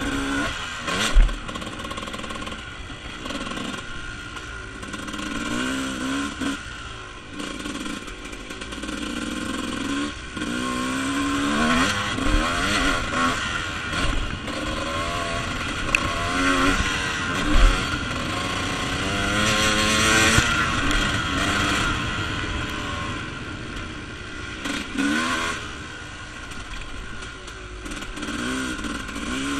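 Dirt bike engine revving up and down as it is ridden around a motocross track, its pitch rising through each gear and dropping off between, over a steady rush of noise. A couple of sharp thumps stand out, about a second in and about halfway through.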